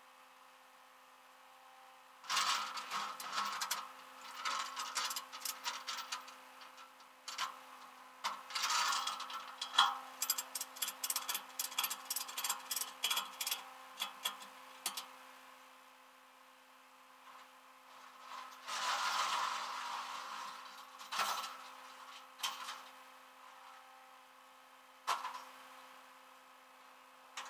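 Metal tie-down gear clanking, rattling and clicking in irregular bursts as a truck is secured on a tow truck's flatbed, with a fast run of sharp clicks in the middle and a couple of single knocks near the end. A faint steady hum runs underneath.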